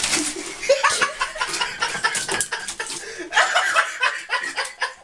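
A person laughing in repeated short bursts.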